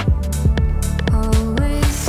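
Background electronic music with a steady beat of deep drum hits over held bass notes.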